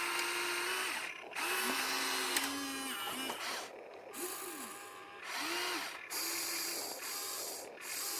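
Small electric motors of radio-controlled construction toys whirring in repeated short runs, each start and stop marked by the whine rising and falling in pitch, with brief pauses between them.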